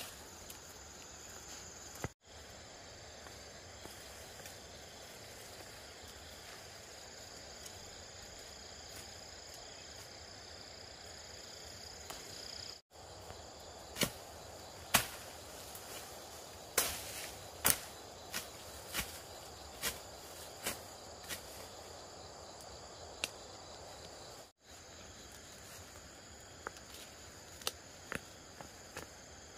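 Insects trilling steadily in the background, with irregular sharp knocks and clicks, most of them in the second half.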